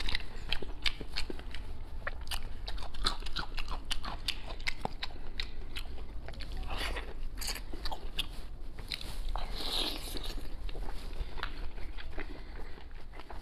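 A man biting and chewing braised chicken heads: a dense, irregular run of sharp clicks and crackles, with two longer, hissier sounds about seven and ten seconds in.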